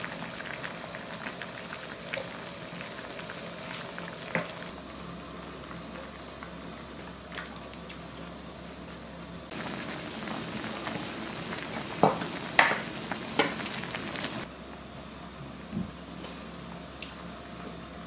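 Shabu-shabu broth bubbling in a hot pot, a steady simmering hiss. There are a few sharp clicks about two-thirds of the way through.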